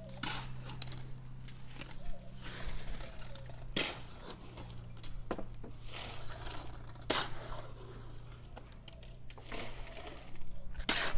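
Building work: scattered sharp knocks and scraping over a steady low hum.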